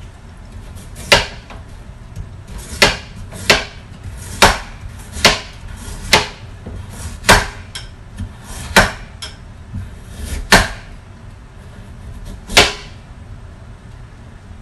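Kitchen knife chopping a carrot on a wooden cutting board: about ten sharp knocks of the blade striking the board, unevenly spaced roughly a second apart, with lighter cuts between.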